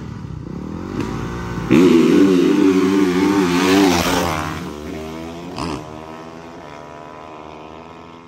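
450cc four-stroke dirt bikes launching from a standing start about two seconds in, revving hard at full throttle as they pass close by. They then fade into the distance, the engine note stepping at each upshift.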